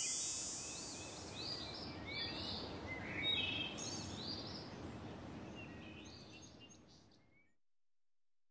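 Small birds chirping over a steady open-air background hiss, with a high shimmer dying away at the start; the whole bed fades out and ends in silence about seven and a half seconds in.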